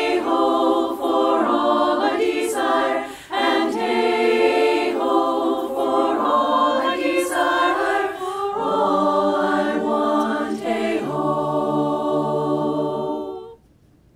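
Women's barbershop chorus singing a cappella in four-part close harmony, moving through chords and then ending on a long held final chord. The chord cuts off cleanly about a second before the end.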